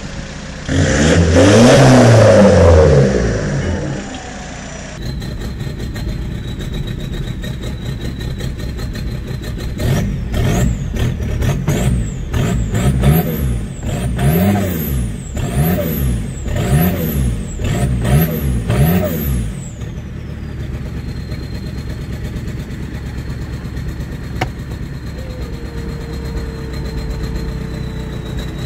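A diesel engine blips once hard. Then comes a diesel truck with a hood-mounted exhaust stack, heard from inside the cab: it is revved about eight times in quick succession, roughly one a second, rolling coal. A turbo whistle rises and falls with each rev, and then it settles to idle with a steady high turbo whine.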